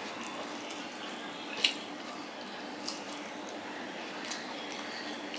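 Fingers picking through fried hilsa fish and rice on a steel plate, with a few sharp clicks against the plate, the loudest about a second and a half in, over a steady background hiss.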